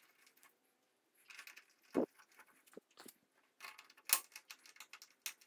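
Small steel screws clicking and clinking against a magnetized driver bit and the metal transfer-case housing as they are picked up and set in their holes. Scattered light taps, with a sharper knock about two seconds in and another just after four seconds.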